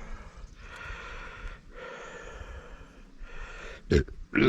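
A person breathing heavily close to the microphone, in long noisy breaths about a second apart, with two sharp knocks near the end.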